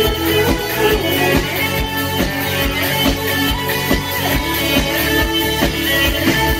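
Amplified live rock-pop band playing the instrumental opening of a new song: a steady kick-drum beat of about two to three hits a second under guitar and sustained chords, before the vocals come in.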